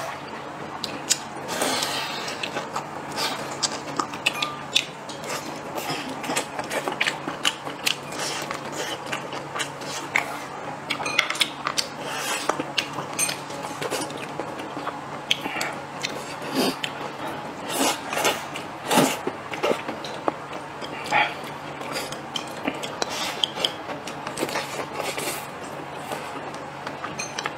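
Eating sounds picked up close by a clip-on mic: chewing, and chopsticks and a spoon clicking and scraping against porcelain rice bowls in short, irregular clicks throughout.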